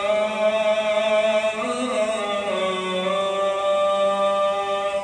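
A muezzin chanting the adhan, the Islamic call to prayer: one long melismatic vocal phrase held without a break, its pitch easing down a little past halfway. It ends near the close.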